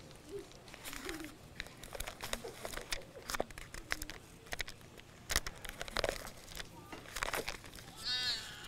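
Thin Bible pages being turned and leafed through, paper rustling and crinkling in irregular bursts. A short bird trill near the end.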